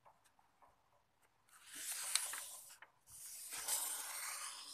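A sheet of A4 paper rustling and sliding as it is folded by hand, corner to corner. Rustling comes in two stretches, a short one about a second and a half in and a longer one from about three seconds.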